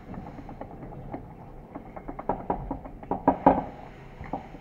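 Light metallic clicks and knocks as a shaft is rocked in the worn hub bushing of a cut-open automatic-transmission torque converter, the shaft loose in its seat. A few louder knocks come about three seconds in.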